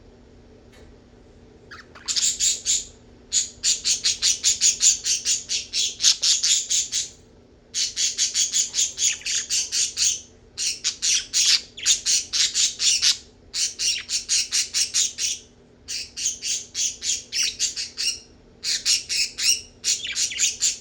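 Budgie (pet parakeet) giving rapid sharp, high chirps, several a second, in repeated bouts of a second or two with brief pauses between.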